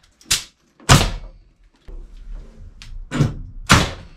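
Sharp knocks on wooden wall framing, four main blows at uneven spacing with a few lighter knocks between.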